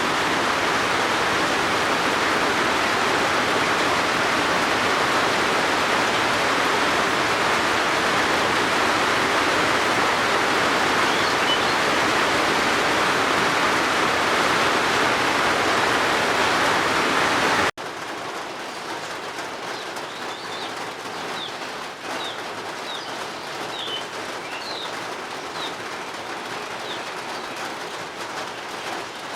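Steady heavy rain, cutting off abruptly about 18 seconds in to quieter rain with birds chirping.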